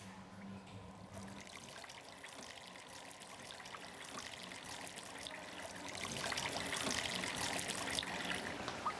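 Water running from a tap into a washbasin, a steady trickle that grows steadily louder.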